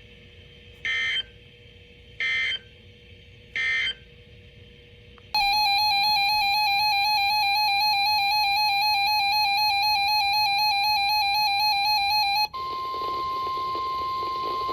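Emergency Alert System audio. It opens with three short bursts of SAME digital data, the end-of-message code that closes a warning. About five seconds in, a loud steady two-tone EAS attention signal starts and holds for about seven seconds. Near the end it switches to a single steady tone, the 1050 Hz NOAA Weather Radio alert tone that opens the next warning.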